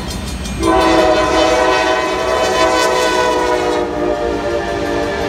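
CSX freight locomotive's air horn sounding one long, loud chord that starts about a second in, as the locomotive reaches the grade crossing. Before it, the crossing bell's regular dinging is heard.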